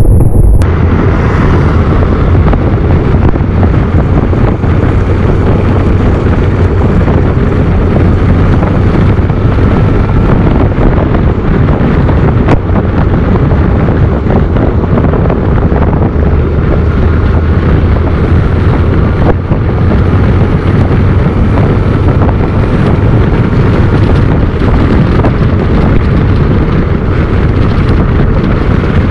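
Motorcycle riding at road speed: heavy wind buffeting on the microphone over a steady, low engine drone.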